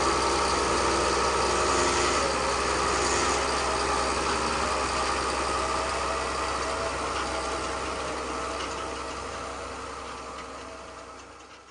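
Huina 1580 radio-controlled metal excavator running, a steady mechanical drone as it works, fading out over the last few seconds.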